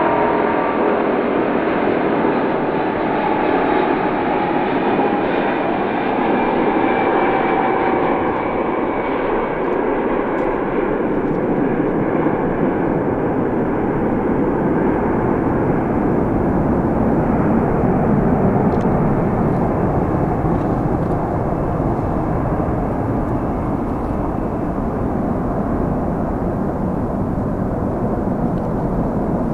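Japan Airlines Boeing 777-200's twin jet engines at takeoff thrust: a steady, loud roar through the takeoff roll, lift-off and climb-out. Whining engine tones stand out over the roar in the first several seconds, then fade, and the sound grows duller as the jet climbs away.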